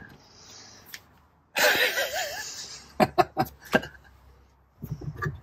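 A man laughs briefly, with a wavering pitch, then a few short sharp sounds follow in quick succession about a second later.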